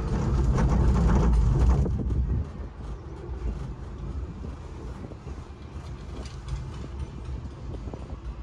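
Cable car gondola running along its cable: a loud rumbling clatter for about the first two seconds, then a quieter steady rumble with light clicking.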